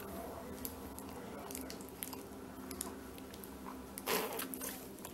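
A baby sucking and mouthing on her fist, with small wet smacking clicks. There is a brief louder rush of noise about four seconds in.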